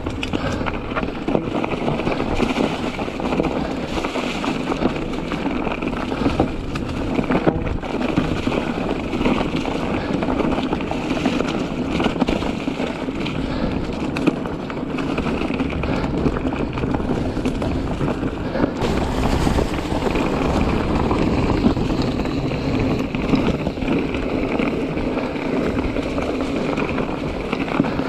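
Mountain bike being ridden over rough, rocky trail: tyres rolling over rock, the bike rattling with frequent small knocks, and wind noise on the microphone.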